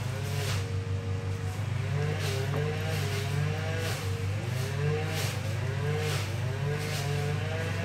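Background music: a steady low bass under a wavering melody line that rises and falls about once a second, with a light regular beat.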